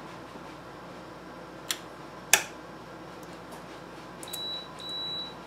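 Two sharp clicks, the second the louder, then a multimeter's continuity tester beeping twice with a high steady tone, the second beep longer than the first.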